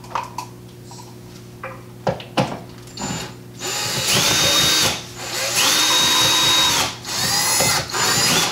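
Handheld power drill run in three short bursts into the wall to mount a curtain-rod bracket, each burst a whine that rises in pitch, holds and falls away. A few light clicks of handling come before the first run.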